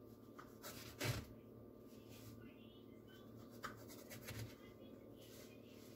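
Faint kitchen handling sounds as a baked pie in a foil tin is cut into: a knock about a second in, then scattered light scrapes and clicks, over a steady low hum.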